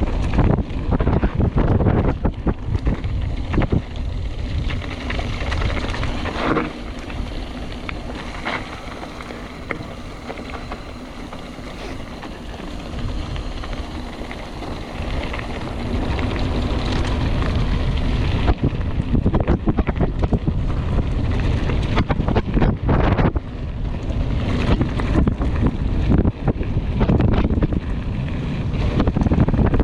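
Wind buffeting a helmet- or bike-mounted action-camera microphone during a fast mountain-bike descent, with the tyres and bike clattering over rough ground in many sharp knocks. It eases off for a stretch in the middle, then gets louder and bumpier near the end.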